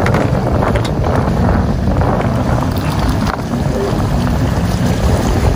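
Wind buffeting the microphone, a steady low rushing noise.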